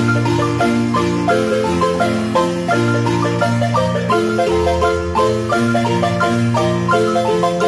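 Marimba music: a lively tune of many quick struck notes, several a second, over low sustained notes underneath.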